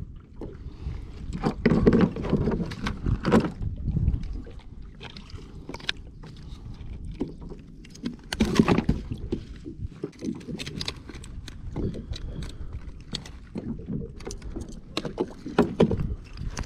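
Water and wind around a plastic sit-on-top fishing kayak, with repeated knocks and clatter as a freshly caught red snapper and a plastic fish grip are handled on the deck. The louder bursts come about 2, 3.5 and 8.5 seconds in.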